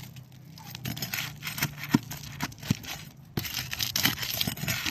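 Asphalt roof shingles being pried up off their seal strips: irregular crackling and scraping with scattered sharp clicks.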